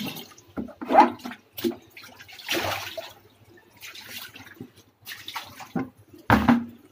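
Tap water running into a plastic bucket, then scattered splashes and knocks as the bucket is handled, with a sharp knock about a second in and a low thump near the end.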